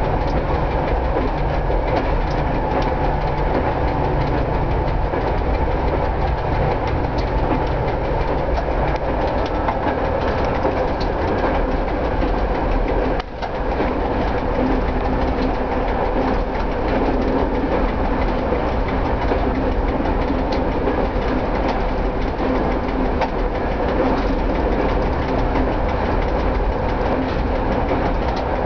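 Cab of a 1960s FIAT diesel railcar running steadily along the track: a continuous engine and running noise, a constant ticking from the electromechanical speedometer/odometer, and rail joints clicking about once a second. It breaks off for a moment about halfway through.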